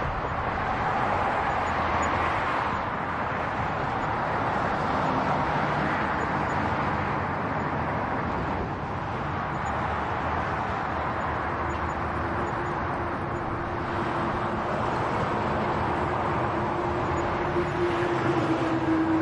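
Street traffic: a steady wash of engine and tyre noise from passing vehicles. A steady low tone comes in about halfway through and grows louder near the end.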